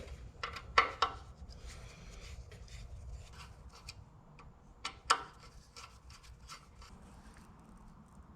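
Small clicks, scrapes and knocks of hand tools and parts being handled during wiring work, with sharper clacks about a second in and again about five seconds in.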